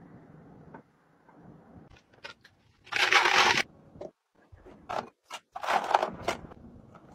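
Chopped green vegetables and ice cubes dropped into the plastic jar of a Zhenmi portable blender, clattering loudly about three seconds in and again near six seconds, with scattered small clicks between. It opens with a faint pour of liquid.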